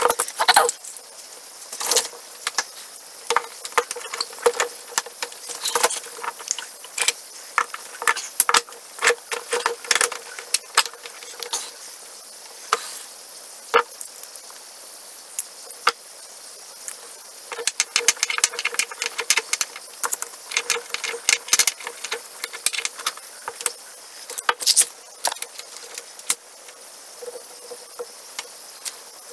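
Small metal hand tools and pocketknife parts clicking and clinking as they are handled on a wooden workbench: a long string of sharp, irregular clicks, with a denser run of rattling a little past the middle.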